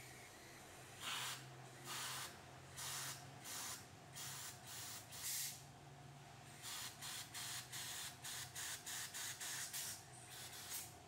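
Short blasts of compressed air from an air hose, blown through a car's in-tank fuel pump and filter assembly to clean it: a string of separate hissing puffs, then a quicker run of short puffs, about three or four a second, in the second half.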